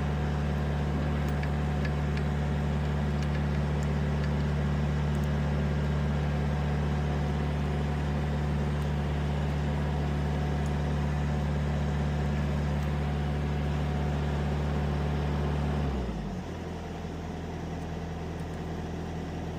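A large engine idling steadily. About sixteen seconds in it drops to a lower, quieter idle.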